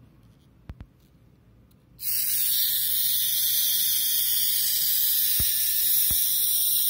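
Cheap battery-powered eyebrow trimmer switched on about two seconds in, its small motor then running steadily with a loud, harsh, high-pitched buzz: a 'very bad noise' from a faulty unit whose head does not rotate.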